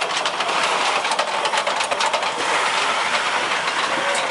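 Steam tank locomotive No. 403 running past close by: a steady hiss of steam with a quick clatter of clanks and clicks from its wheels and running gear.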